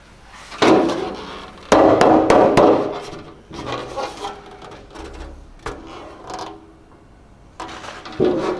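Several sharp knocks and clatters, the loudest about half a second and just under two seconds in, each with a short ring after it, followed by quieter scattered handling clicks and more knocks near the end.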